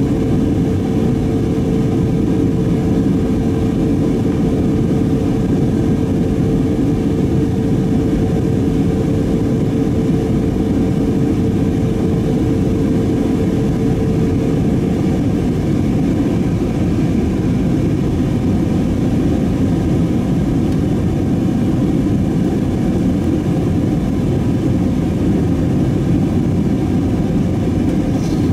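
Steady in-flight cabin noise of an Airbus A320neo airliner: a loud, even rush of engine and airflow noise. A steady hum runs over it for the first half and fades out about halfway through.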